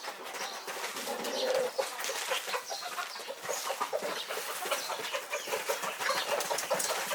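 Chickens feeding, with short calls and wing flaps over a busy patter of small clicks.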